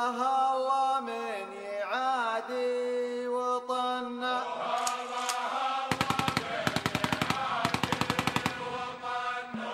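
Background music: a chant-like melody of long held notes that bend at times, with a fast run of drum beats from about six to nine seconds in.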